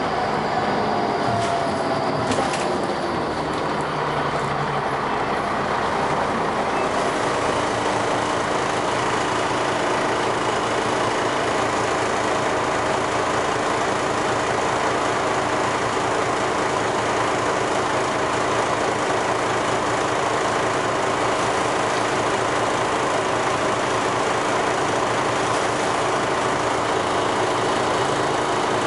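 Dennis Arrow double-decker bus running steadily under way, engine and ZF automatic gearbox together. A whine falls in pitch over the first few seconds, then the running stays even.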